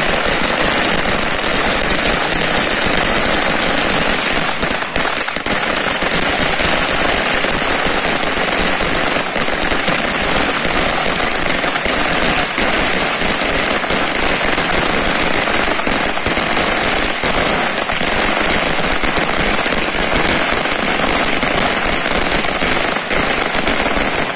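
A Standard Fireworks 1000-wala firecracker string bursting non-stop: a dense, unbroken crackle of rapid small bangs.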